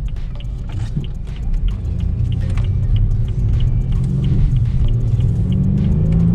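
In-cabin engine and road rumble from a BMW 328i xDrive being driven, with the engine note rising slightly near the end and a faint regular ticking above it.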